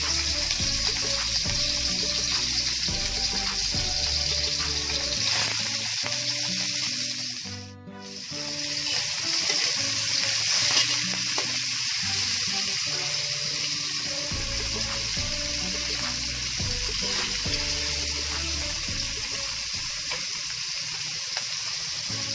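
Chopped garlic, onion, ginger and tomato sizzling steadily in hot oil in a wok as they are stirred, with background music underneath. The sizzle drops away briefly about eight seconds in.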